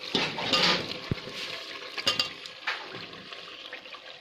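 Boiled chicken pieces and potatoes tipped from a bowl into a pot of thick masala, with wet splashing and sloshing, loudest in the first second, and a short clink about two seconds in.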